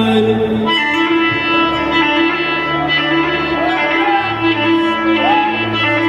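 Instrumental Iraqi dabke party music: loud held melody notes with small pitch bends over a steady low drone.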